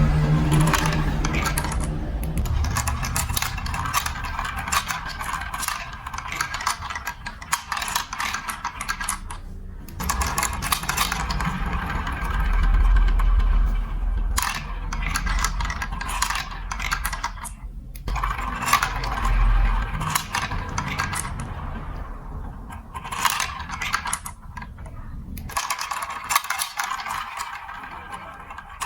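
Marbles rolling and clattering through a building-block marble run: dense clicks of marbles knocking against the track and each other over a low rolling rumble, with brief lulls about ten, eighteen and twenty-five seconds in.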